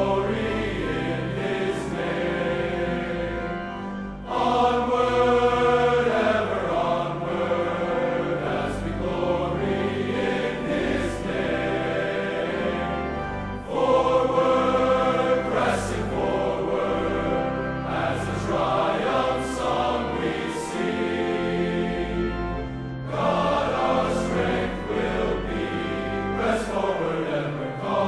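Large male choir singing in harmony, with sustained phrases that come in louder about four, fourteen and twenty-three seconds in.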